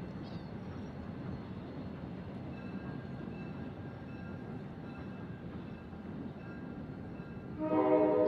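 Steady low rumble of a train, then about seven and a half seconds in a locomotive air horn sounds loudly, a chord of several notes held on.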